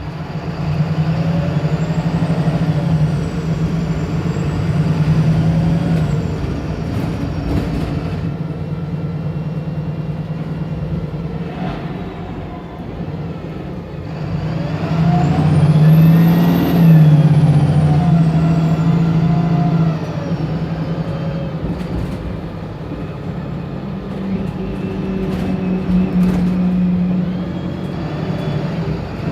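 Wright Pulsar single-deck diesel bus engine working hard under load, its note rising and falling with a high whistle that climbs and falls away about halfway through, the loudest stretch.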